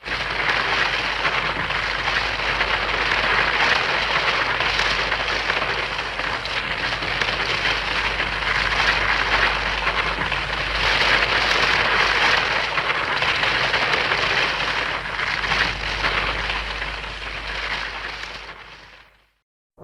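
Hedorah (Perfect Stage) kaiju sound effect: a long, steady hissing noise like heavy rain, with a low hum beneath it, fading out near the end. It is not a roar.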